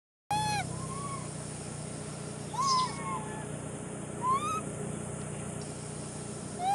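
Macaque coo calls: several short, arched, whistle-like calls rising and falling in pitch, the loudest about a third and two-thirds of the way through, over a steady background hiss.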